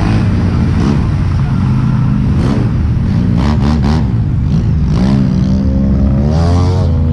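ATV engines running in mud, one revving up with a rising pitch near the end.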